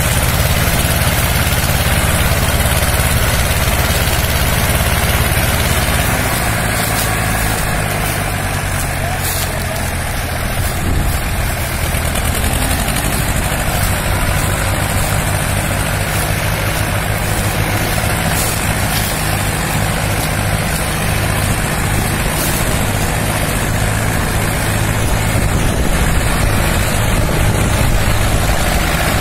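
Two diesel tractor engines, a Mahindra 265 DI and an Escort 335, running steadily under heavy load as the tractors pull against each other on a chain in a tug-of-war.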